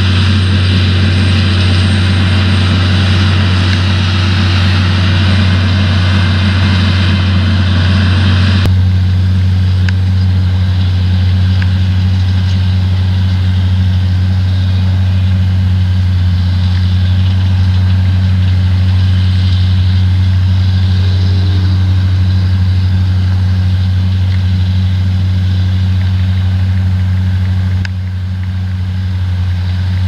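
Self-propelled potato harvesters (Dewulf RA 3060 and Grimme Varitron 270) running as they lift potatoes, giving a steady, loud low engine drone. For the first nine seconds there is a busier, brighter layer of machine noise, which changes suddenly to a plainer drone.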